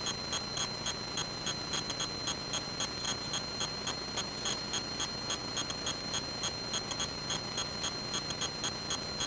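Steady high-pitched electrical whine with regular ticking, about four ticks a second: interference noise on the aircraft's intercom audio feed.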